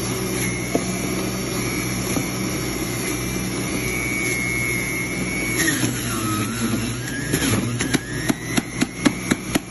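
Electric centrifugal juicer motor running steadily with a low hum and a high whine, grinding apple and orange pieces; the whine shifts pitch about halfway through. Near the end comes a quick run of sharp clicks, about three a second.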